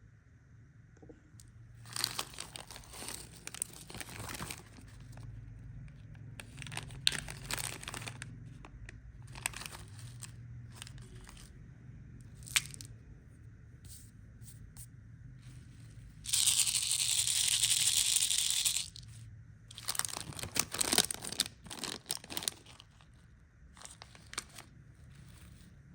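Candy packaging being handled and torn open: irregular crinkling and crackling with sharp clicks, and one loud, continuous tear lasting about two seconds past the middle.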